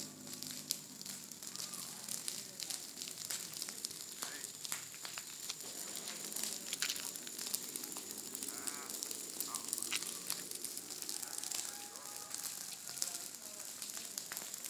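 Crackling, rustling handling noise on a handheld phone microphone over faint outdoor background sound, with a steady thin high hiss.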